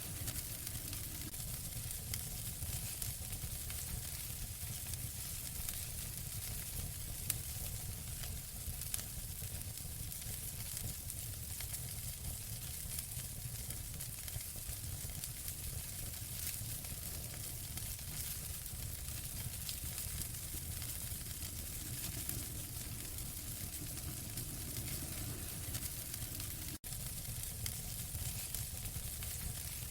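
Wood fire crackling in a fireplace: a steady hiss with a low rumble and many small scattered pops. The sound cuts out for an instant near the end.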